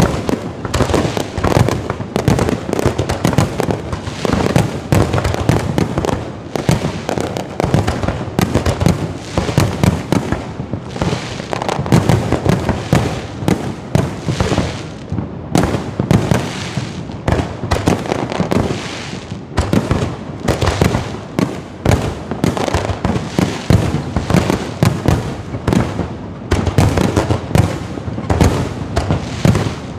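Aerial fireworks going off in a dense, continuous barrage of bangs and crackles, many bursts a second with no pause.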